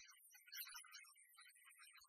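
Very faint background music, close to silence.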